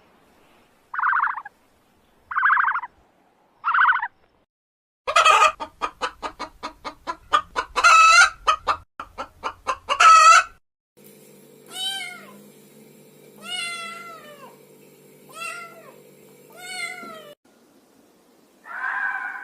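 Animal calls from several different clips in turn: three short pitched calls, then a rapid run of pulsed calls, then four drawn-out calls that rise and fall.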